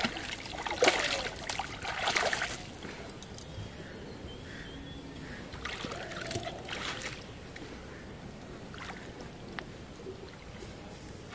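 A hooked fish thrashing and splashing at the surface of shallow ditch water for the first two or three seconds, then quieter, with a second short burst of noise about six seconds in.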